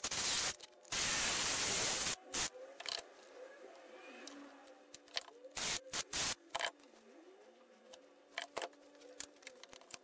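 Hole saw in a Hitachi cordless drill cutting into a small wooden blank in short bursts, the longest a bit over a second near the start, with two brief ones around the middle.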